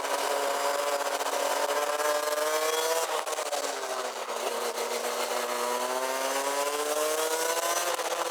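Rotax Max DD2 kart's 125 cc two-stroke single-cylinder engine on the track, rising in revs, then cutting off sharply about three seconds in with the revs falling off, before pulling hard and rising steadily again until near the end. A steady wind hiss on the microphone runs under it.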